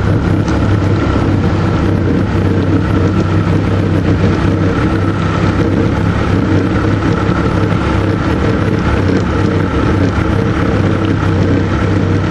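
Motorboat engine running steadily while underway, a constant hum with a rushing noise over it.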